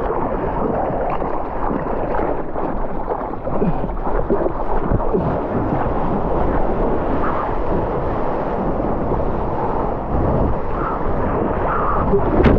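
Water rushing and splashing against a surfboard moving through small surf, heard close up from a camera mounted on the board, with wind buffeting the microphone. A bigger, sharper splash comes near the end.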